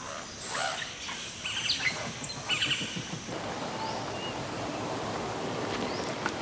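Outdoor ambience with birds chirping: short rising calls over the first three seconds, then a steady even hiss of background noise.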